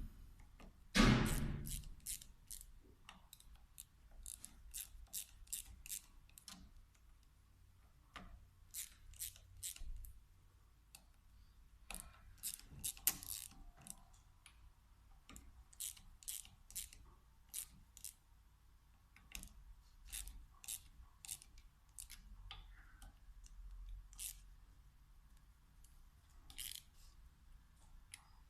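Small metal parts and hand tools clicking and ticking as a VE diesel injection pump is worked on, in irregular light taps. One louder knock comes about a second in.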